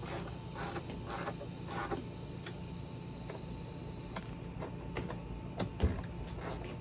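Light clicks and creaks of hand tools working on tractor parts, with one louder knock about six seconds in.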